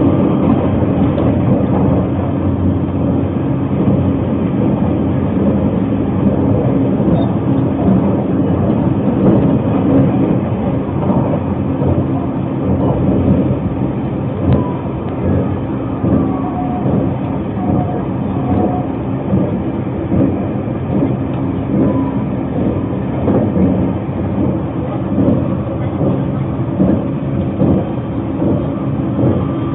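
Narita Express train running at speed, heard from inside the passenger car: the steady running noise of wheels on rail and the car in motion.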